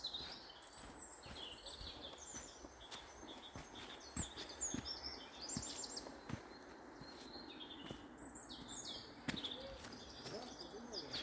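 Small birds chirping and singing in woodland, many short high calls throughout, with faint footsteps on a forest path.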